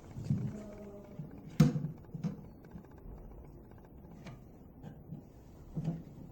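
Scattered knocks and clunks of parts and tools being handled, with one sharp click about one and a half seconds in and a few dull bumps after it.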